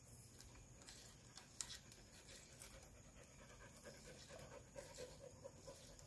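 Near silence, with a few faint clicks from the instrument cluster being handled, most of them in the second half.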